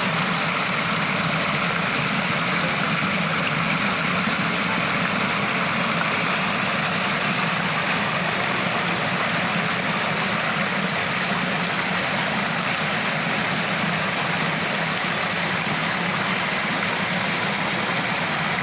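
Small waterfall splashing and gurgling in a steady, even rush of water.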